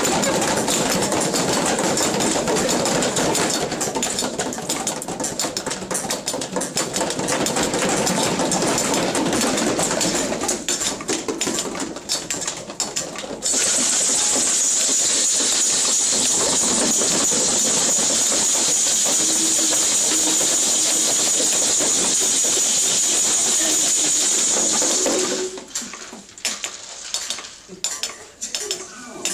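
Homemade percussion instruments played together: shakers made from water jugs, cups and tubes rattling, sticks striking a pan, with voices mixed in. About halfway through, a steady, loud shaker hiss takes over. It stops suddenly near the end, leaving scattered sharp taps.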